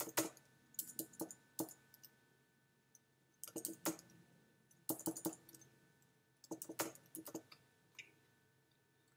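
Computer keyboard keys being typed in several short bursts with pauses between, a run of quick clicking keystrokes.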